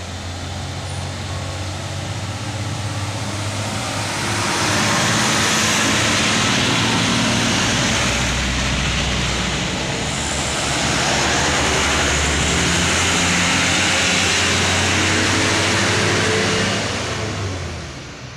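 Heavy sugarcane-laden diesel trucks passing close by, engine and tyre noise. It swells about four seconds in, dips briefly around ten seconds, rises again and fades near the end.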